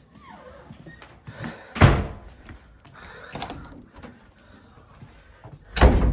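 Thumps and knocks of someone moving about the house: two heavy thumps about four seconds apart, the second the loudest, with lighter knocks between and a short falling squeak near the start.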